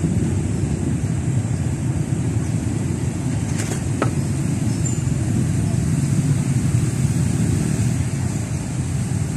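Steady low rumble of outdoor background noise, with two brief clicks about three and a half and four seconds in.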